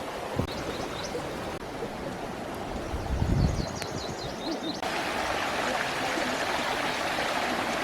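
Outdoor ambience: a steady rushing noise like running water or wind, with faint short bird chirps in the first half. The rushing gets abruptly louder and brighter about five seconds in.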